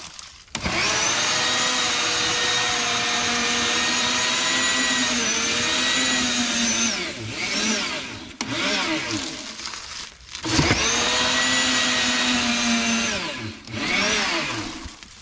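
Sun Joe TJ604E 13.5-amp electric tiller: its motor and tines start with a steady high whine, and the pitch dips and recovers as the tines dig into the soil. The motor cuts out about ten seconds in, starts up again, runs steadily and winds down near the end.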